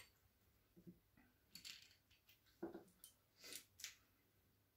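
Faint, scattered metallic clicks and light scrapes of a hex key and small screws being handled while the barrel fixing screws of a Sauer 303 rifle are undone.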